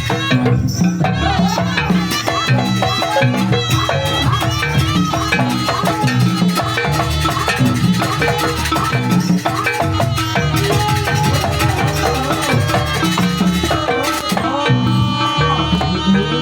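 Live Banyuwangi jaranan ensemble music at full tilt: steady driving drums and percussion under a reedy wind-instrument melody.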